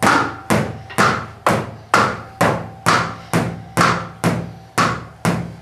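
Drumsticks striking the pads of an electronic drum kit, heard unamplified as dry tapping hits in an even beat of about two a second. Under the hits runs a faint steady hum from the laser projector's cooling fan.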